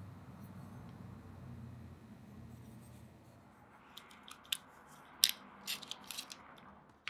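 A faint low hum, then from about four seconds in a run of sharp clicks and snaps from a clear plastic razor-blade dispenser being handled.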